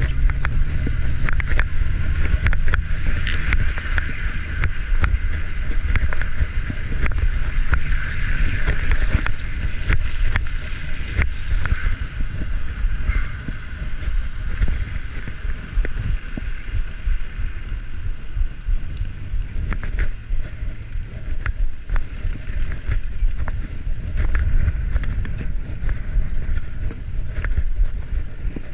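Wind buffeting a bicycle-mounted action camera's microphone while riding, a steady low rumble. Over it run tyre and road hiss, louder in the first half, and frequent small clicks and rattles from bumps in the road.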